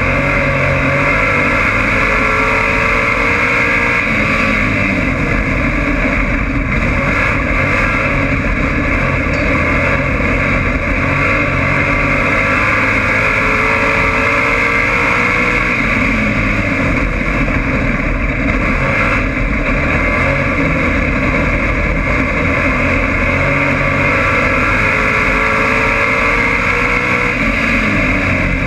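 Dirt-track race car's engine heard from inside the cockpit, running hard and loud; its pitch rises several times as it accelerates out of the turns and drops back as it lifts for the next corner.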